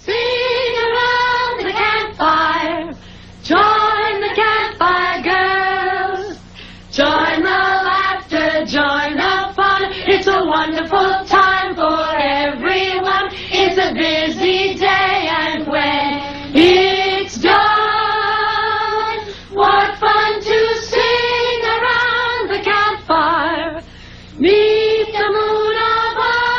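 A choir of girls singing a song together without accompaniment, in phrases separated by short pauses for breath, over a faint steady low hum.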